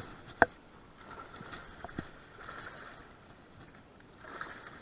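Sharp knocks against a jon boat as a hooked bowfin is landed over the side: two loud ones about half a second apart, a lighter one about two seconds in, and faint splashing and rustling between them.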